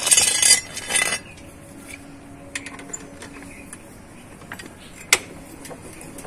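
Metal clattering and scraping as a steel extension bar is fitted onto the drive screw of a multi-stage scissor jack: two loud bursts in the first second or so, then a few sharp clinks.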